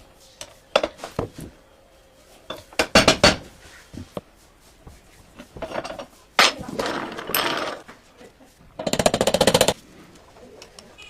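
Metal parts of an antique sewing machine being worked on: scattered knocks and clicks, a quick cluster of louder knocks about three seconds in, a stretch of scraping, then a fast rattling burst lasting about a second.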